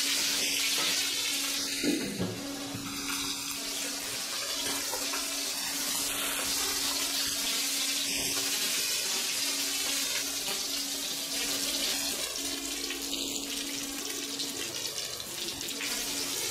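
Crab pieces frying in oil in a wok over low heat: a steady sizzling hiss as they are stirred. There is a brief knock about two seconds in, and a steady low hum underneath.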